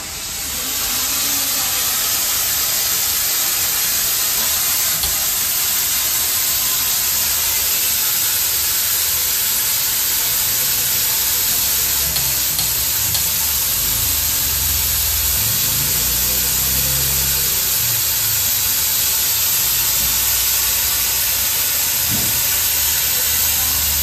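Steam iron fed by a 22-litre stainless-steel electric steam boiler, releasing a continuous jet of steam from its soleplate at full pressure. It makes a loud, steady hiss that builds over the first second.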